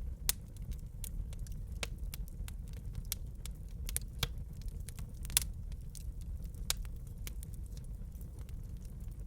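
Wood fire burning in a fireplace, crackling with irregular sharp pops and snaps over a steady low rumble of the flames; the sharpest pops come about a third of a second in and about five and a half seconds in.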